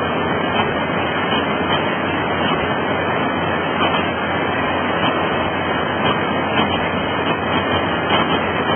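Fast river whitewater rushing in a steady, unbroken wash of noise, with a low, even hum from the working excavator's diesel engine underneath.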